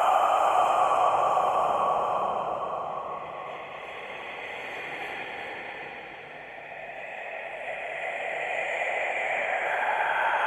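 Scary whisper sound effect: a continuous breathy hiss that fades down through the middle and swells back up near the end.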